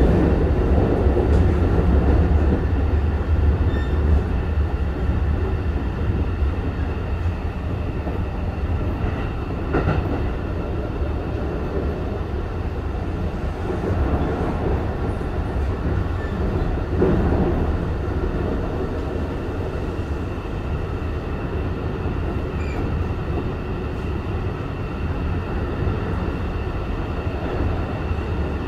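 Keikyu 1500-series electric commuter train with Toyo IGBT-VVVF control running at speed, heard from inside the passenger car: a steady low rumble of wheels on rail with a few faint steady tones above it, and a couple of soft knocks about ten and seventeen seconds in.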